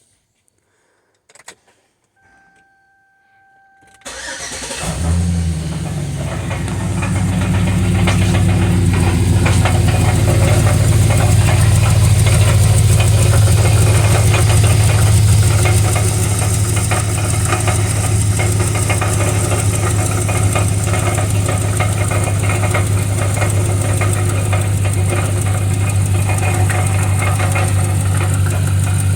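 A 2005 Chevrolet Suburban's 6.0-litre V8 is started about four seconds in, after a brief electronic tone, and then runs steadily. Through it comes a chattering rattle from the underside of the vehicle, the sound of a crumbling catalytic converter.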